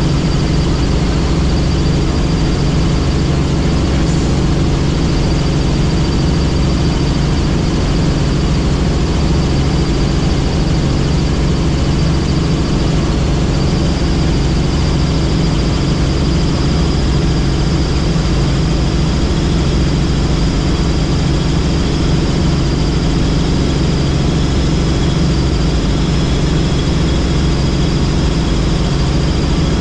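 Helicopter in flight: a loud, steady drone of engine and rotor with a thin high turbine whine on top, which steps slightly higher about halfway through.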